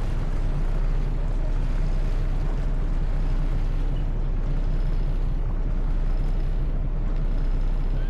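Passenger ferry's engine running steadily with a low, even hum, heard from the open deck over a steady rushing noise of wind and water.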